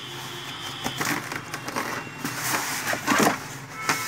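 Cardboard box and polystyrene foam packing being handled and pulled apart during unpacking: a run of scraping, rubbing and creaking noises, loudest about three seconds in.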